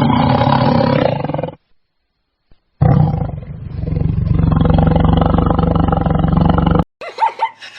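A large animal roaring twice: a short roar, then after about a second's pause a longer one of about four seconds that cuts off abruptly. Short, high yelps follow near the end.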